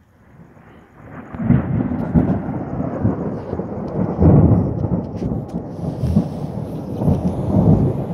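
Thunder rumbling: a low roll builds about a second in and goes on with several louder peaks.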